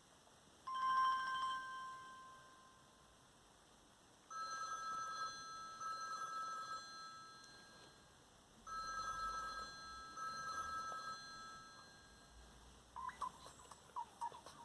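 Samsung Galaxy Y phone ringtones: a short electronic chime about a second in, then a trilling telephone-style ring sounded twice. Near the end the next ringtone begins with quick, irregular clicking chirps.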